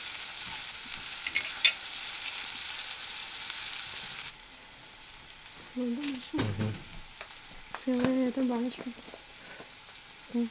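Chicken combs and onion frying in a pan: a steady sizzle with sharp crackles that cuts off abruptly about four seconds in. After that it is quieter, with a few knocks and short pitched sounds.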